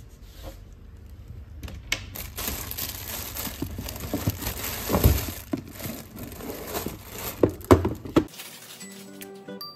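Plastic bubble wrap around a package crinkling as it is handled and shifted, with a few knocks of the package against the cabinet about halfway through and near the end.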